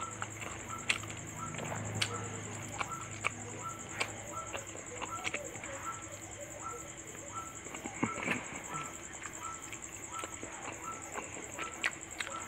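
Close-up eating sounds: irregular wet mouth clicks and chewing, as fish curry and rice are eaten by hand. Behind them, a faint small tick repeats about twice a second.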